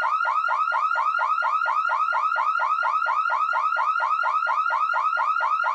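Electronic car or home alarm siren sounding a steady rapid chirping pattern, about five quick pitch sweeps a second, without a break.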